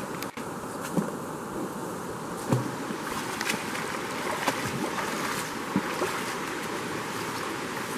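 Steady rush of a small forest stream, with a few short splashes and knocks from footsteps wading through the water.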